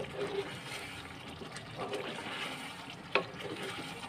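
Wooden spoon stirring chicken karahi in a pot, the thick tomato gravy sizzling wetly as it is fried down (bhunai). The spoon knocks against the pot twice, once at the start and once about three seconds in.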